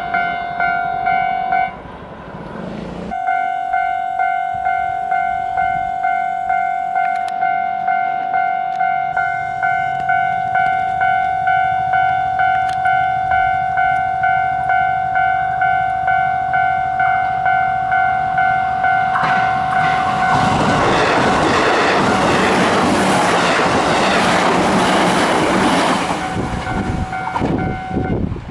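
Japanese level-crossing warning bell ringing in a steady, evenly repeating two-tone pattern. About 20 seconds in, a train passes over the crossing for around five seconds, its wheels clattering on the rails and drowning out the bell. The bell is still ringing as the train clears.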